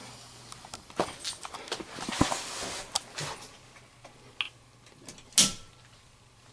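Clicks, knocks and rustling of hands working at a breaker panel as a tripped water-heater circuit breaker is switched back on, with one loud sharp clack about five seconds in.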